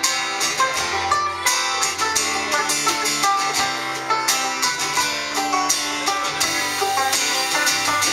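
Live country band playing an instrumental break between sung verses: plucked guitars carrying the tune over a steady drum beat.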